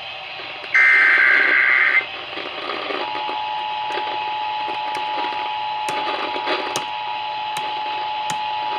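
Emergency Alert System broadcast over the radio. A burst of warbling SAME header data tones about a second in is followed, about three seconds in, by the steady two-tone attention signal (853 and 960 Hz), which holds to the end. Faint clicks and hiss sit underneath.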